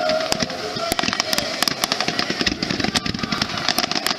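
Fireworks crackling overhead: a dense, irregular run of sharp pops and bangs.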